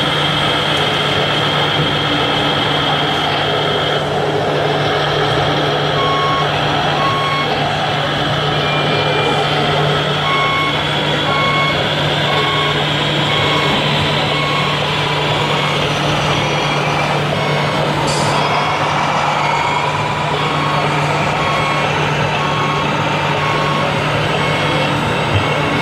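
Reversing beeper of a radio-controlled model truck's sound module, beeping evenly about once a second from about six seconds in, over a steady low hum.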